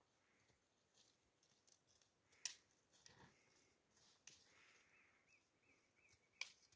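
Near silence, broken by a few faint sharp clicks, the clearest about two and a half seconds in and just before the end. In the second half a faint high chirp repeats about three times a second.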